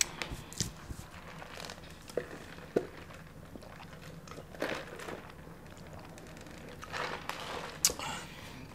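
Eating sounds at a mukbang table: crinkling of a fast-food wrapper and crunchy chewing, heard as a scatter of small sharp clicks and short rustles.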